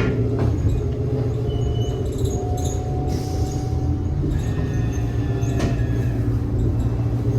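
Cabin noise of a New Flyer XT60 electric trolleybus under way: a steady low hum from the Skoda traction motor and drive, with faint whine tones. Short rattles are heard near the start and again about five and a half seconds in.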